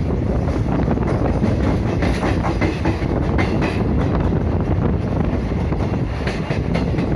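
Train running along the rails: a steady, loud rumble, with runs of wheel clicks about two seconds in and again near the end.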